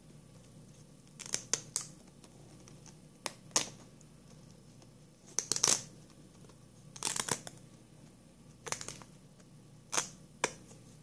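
Paper crinkling and rustling in short bursts every second or two as a cut fabric leaf is peeled by hand off its paper backing.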